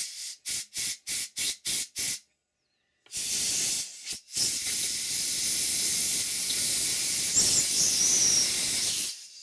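Compressed-air airline blowing out a model steam engine cylinder: first a quick run of about seven short puffs, then after a pause a long steady hiss with a brief break, clearing dense foundry core sand out of the cast-in steam ports.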